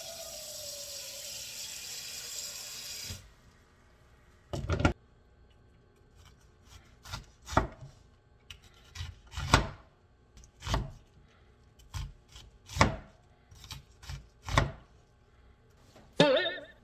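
A series of about ten sharp knocks, roughly one a second and unevenly spaced, after a few seconds of steady hiss. A short pitched, wavering sound comes near the end.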